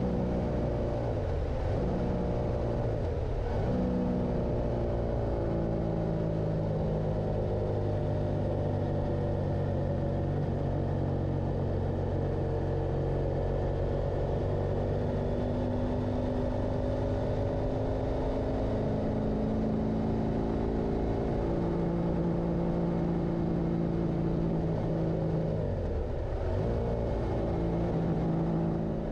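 Motorcycle engine running while riding, its pitch rising and falling slowly with the throttle, with brief dips at gear changes about a second in, around three seconds in and near the end.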